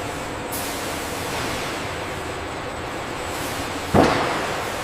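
Steady noise of factory machinery, with a sudden loud burst about four seconds in that dies away quickly.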